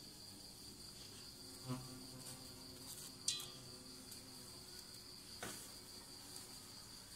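Crickets trilling steadily on one high continuous note, with three short handling knocks against an aluminium pot, the loudest about three seconds in.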